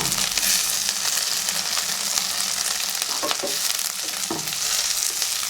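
Sliced onions, curry leaves and green chillies sizzling steadily in hot oil in a pan. Two or three short knocks come about three and four seconds in.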